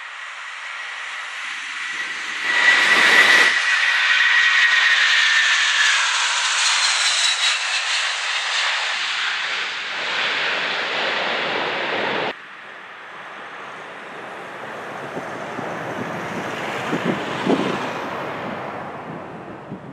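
Boeing 747-400's four jet engines at takeoff power, a loud jet roar with a high whine that sags slightly in pitch as the airliner rolls past and lifts off. About twelve seconds in the sound drops suddenly, then swells and fades as the jet climbs away.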